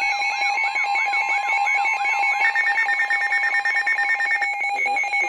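Weather radio sounding its electronic alert alarm for a severe thunderstorm warning: steady beeping tones under a repeating swooping warble, which switches to a fast pulsing beep about two and a half seconds in. A voice starts reading the warning near the end.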